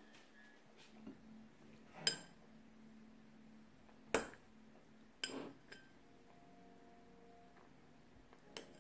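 A few sharp clinks and knocks of hard objects, three louder ones about two, four and five seconds in, over a faint steady hum.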